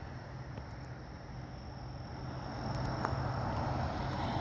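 Steady low hum under faint hiss from an open radio channel between transmissions, growing slightly louder after about two seconds.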